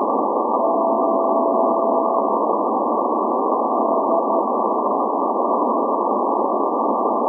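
Shortwave Morse code signal from the SVO maritime coast station in Greece on 8424 kHz, heard through a software-defined receiver in CW mode as a faint steady tone keyed on and off under constant static hiss. There is one long tone of nearly two seconds about half a second in, then a few short broken tones around four seconds.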